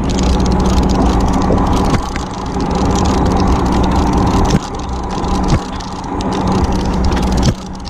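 Fishing boat's engine running steadily, a low hum under a loud rushing noise.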